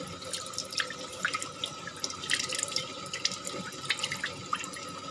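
Tap water running over turmeric rhizomes as they are washed, with irregular splashes and drips.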